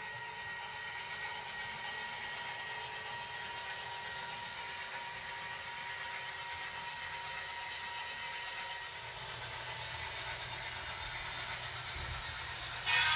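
HO scale model train cars rolling along the track: a steady rolling hiss of small wheels on rail with a faint whine. About nine seconds in, a low hum joins, and just before the end the sound suddenly gets much louder.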